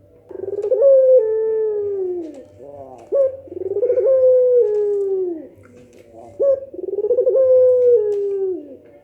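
Puter pelung dove cooing: three long coos, each opening with a quick stuttering rise and then a long note that falls away in steps. A short upswept note comes just before the second and the third.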